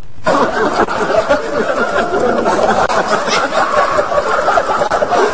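A group of people laughing together, many voices overlapping, with some talk mixed in; it cuts in suddenly just after the start.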